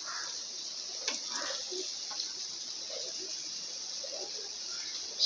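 Faint steady hiss with a few soft, light clicks and knocks.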